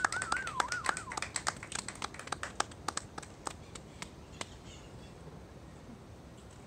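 Scattered hand clapping from a small group, thinning out and dying away after about four seconds, with a brief high wavering sound in the first second.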